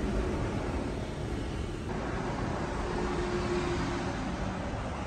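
Road traffic: vehicles passing on a nearby road, a steady engine hum with a faint drone.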